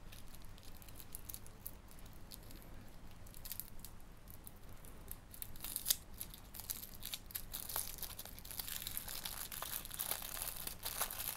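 Thin tissue paper wrapping being unfolded and crumpled by hand: a run of small crinkles and crackles that gets busier and louder from about halfway through.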